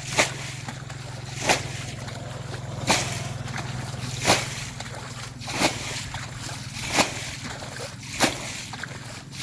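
Seven sharp hits at an even pace, about one every second and a half, over a steady low hum.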